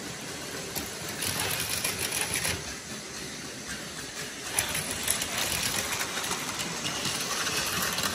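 Plarail Advance battery-powered toy trains running on plastic track: a steady whir from their small electric motors, with rattling and a few sharp clicks about halfway through.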